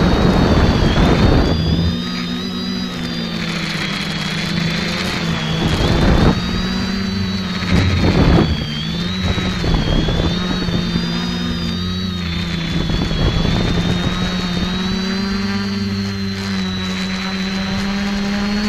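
Quadcopter's electric motors and propellers whirring as heard from its own onboard camera, the pitch wavering up and down as the throttle changes. Wind buffets the microphone in short gusts, the strongest in the first second or so and again at about six and eight seconds in.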